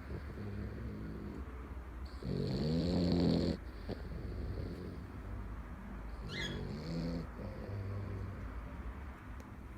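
A sleeping pet snoring: softer snoring breaths throughout, with one long, louder pitched snore about two seconds in. A brief high squeak sounds past the middle.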